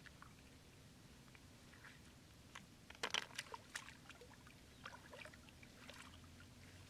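Hands groping and splashing in shallow muddy floodwater among grass: faint, irregular small splashes and drips, with a brief cluster of louder splashes about three seconds in.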